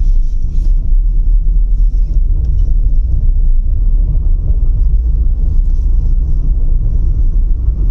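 Steady low rumble of engine and road noise inside the cabin of a 2010 first-generation Ford Figo petrol hatchback driving along a paved road.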